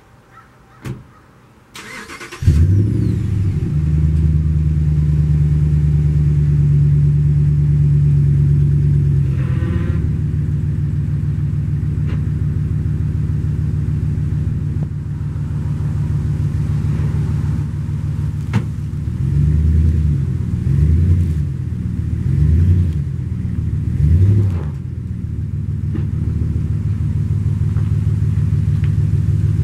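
Ram 1500 pickup engine cranked by the starter and catching about two seconds in, then idling steadily. Between about 19 and 25 seconds the engine revs up and down several times as the truck eases forward and takes up the slack in a tow strap.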